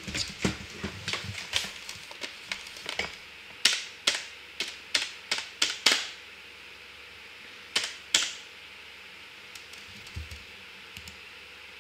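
Typing on a computer keyboard: irregular runs of key clicks over the first six seconds, two more about eight seconds in, then a few faint ones.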